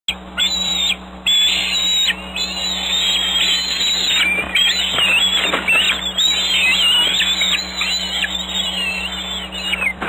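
Bald eagles calling: high-pitched, wavering whistled squeals almost without a break, with a few knocks and flurries about five to six seconds in as an adult lands on the nest with food. A steady low hum runs underneath.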